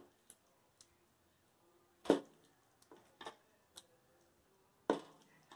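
Wooden spoon knocking against a metal karahi and a glass serving bowl as curry is scooped across: a few sharp knocks, the loudest about two seconds in and another near the end, with softer taps between.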